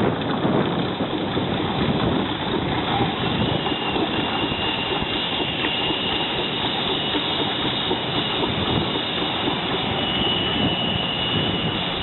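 Keck-Gonnerman steam traction engine running as it drives along, a steady dense mechanical clatter. A thin, high steady whine joins about three and a half seconds in.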